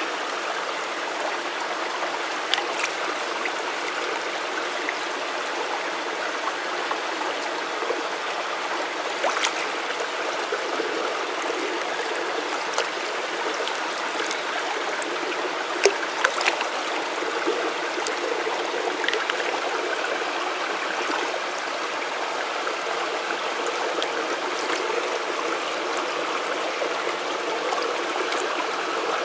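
Shallow stream water running and trickling over rocks, steady throughout. A few short splashes and clicks come through it, loudest about two-thirds of the way in, as a hand reaches into the water and lifts out pebbles.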